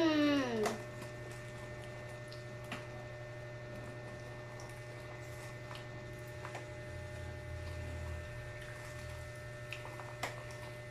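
Quiet wet eating sounds of children chewing and handling saucy chicken feet: scattered small clicks and squishes over a steady low hum. In the first second, a child's short voiced 'mm' rises and then falls in pitch.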